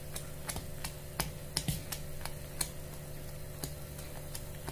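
Metal spoon stirring thick fermented idli batter in a bowl, clicking irregularly against the bowl's side, over a steady low hum.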